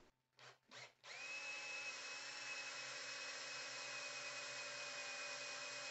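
Cordless drill boring a large hole partway into an MDF board. After two short blips, the motor spins up about a second in and then runs steadily with a high whine.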